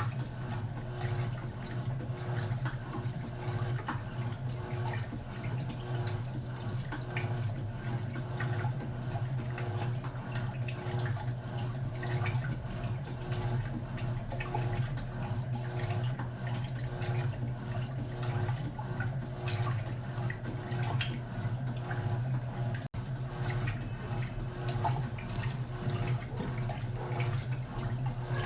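Turbo LT11F 10 kg washing machine running a wash load of floor cloths: a steady motor hum under churning, splashing water.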